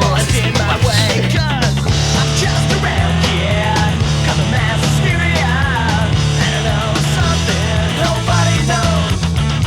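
Punk rock soundtrack music with distorted guitars, a steady bass line and vocals.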